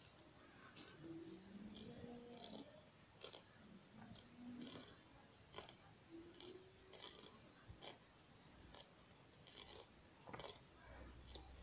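Near silence with faint, irregular clicks and scratches of a steel crochet hook pulling cotton thread through half double crochet stitches.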